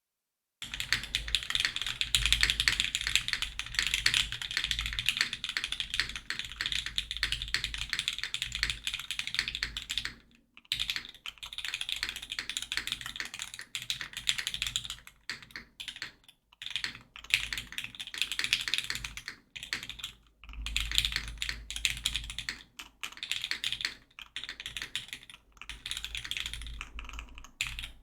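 Typing on a Geonworks F2-84 mechanical keyboard with lubed Cherry Hyperglide MX Black linear switches in an aluminum plate, under GMK keycaps. The keystrokes are dense and continuous for about the first ten seconds, then come in shorter runs broken by brief pauses.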